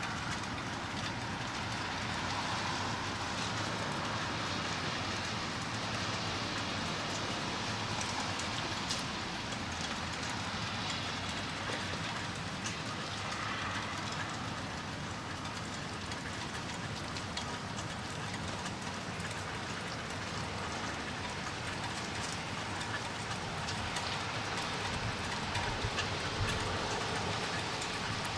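Freezing rain falling steadily, a dense patter sprinkled with fine ticks of drops and ice hitting surfaces.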